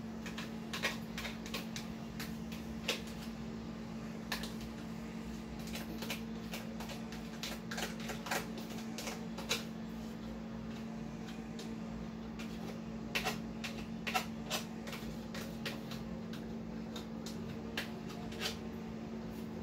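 Irregular light clicks and scrapes of kitchen utensils working over a mixing bowl while cream cheese and condensed milk go in, with a steady low hum underneath.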